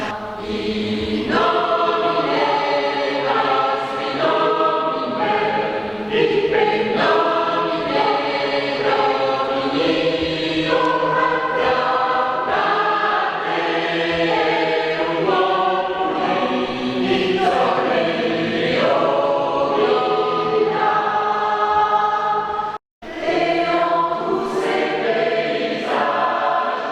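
Amateur choir singing a song, many voices together holding and shifting chords. The sound breaks off for a split second about 23 seconds in.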